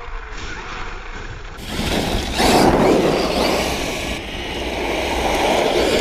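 Traxxas X-Maxx RC monster truck driving over wet gravel and snow: a loud rushing of its tyres and drive sets in about two seconds in, peaks, then eases off a little.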